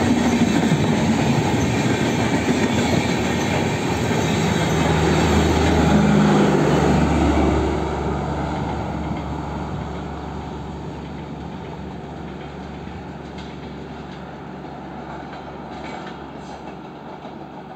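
Express train's passenger coaches rolling past on the rails, a steady clatter of wheels on track, loudest about six seconds in and then fading gradually as the train draws away.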